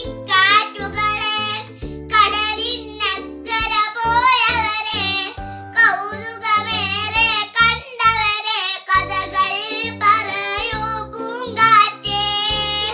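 A young girl singing a song with a lively melody over an instrumental backing track.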